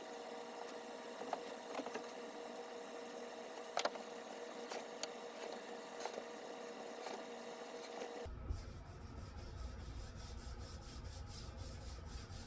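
Paste wax being rubbed by hand onto a plywood straight edge, a soft rubbing with a few light clicks from handling the wax tin. A faint steady hum gives way to a low rumble about eight seconds in.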